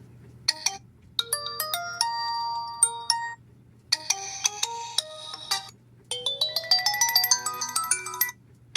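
itel A80 phone ringtone melodies: bright electronic bell-like notes in several short phrases separated by brief pauses, one climbing in a quick rising run.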